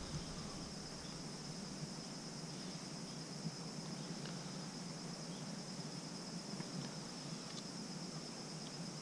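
Steady, high-pitched drone of an insect chorus, with a few faint ticks over it.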